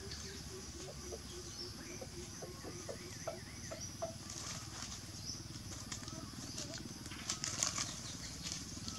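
Outdoor background of birds calling over a steady low hum, with scattered rustling and crackling of dry leaves as a baby monkey and a puppy scuffle on them. The rustling is loudest about seven and a half seconds in.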